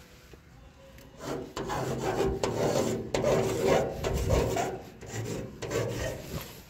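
Correction pen tip scratching across a wall in quick strokes as a tag is written. The strokes start about a second in, with short breaks between them.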